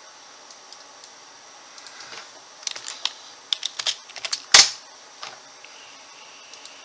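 Typing on a Corsair RGB computer keyboard: a quick run of key clicks, then one much louder single keystroke about four and a half seconds in and a last soft click after it.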